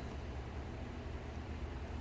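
Steady low background hum with faint hiss, and no distinct event: room tone.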